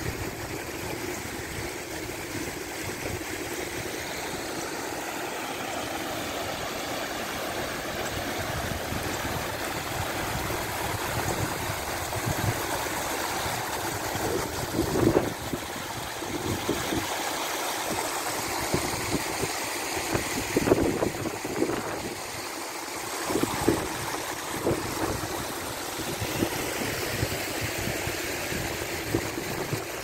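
Small creek waterfall: shallow water spilling over flat rock ledges into a pool, a steady rushing and gurgling, with a few brief louder moments in the middle.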